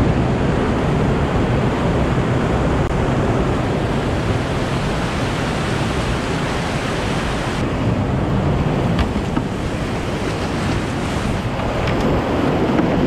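Whitewater rapids rushing steadily around a kayak running a rocky rapid.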